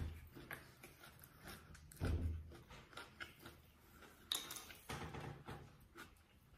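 Faint clicks and rustles of a plastic water bottle being uncapped and handled, with a low thump about two seconds in and a sharper crinkle of the plastic a little after four seconds in.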